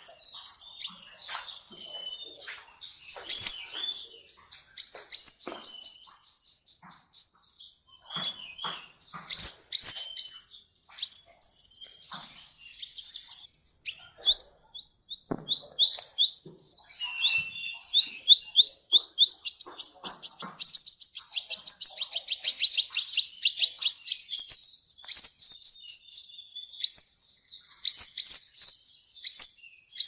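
Copper-throated sunbird (kolibri ninja) singing a long, varied song: quick runs of high, rising chirps and dense fast trills, broken by short pauses. The song is packed with mimicked phrases (full isian).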